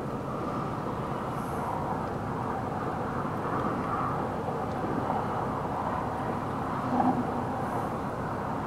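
Steady outdoor wind rushing past the microphone, with a brief louder gust about seven seconds in.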